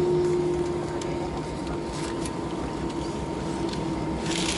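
Cabin noise of an Airbus A319-111 rolling out on the runway after touchdown, heard from a seat over the wing: a steady rumble with a low hum from its CFM56 engines at low power, one tone fading out at the start. About four seconds in, a hiss swells up.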